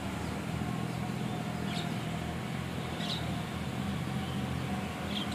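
Electric pedestal fan running steadily with a low hum and rush of air while sesame seeds are poured through its airstream to blow out the fine chaff. Two faint high chirps about two and three seconds in.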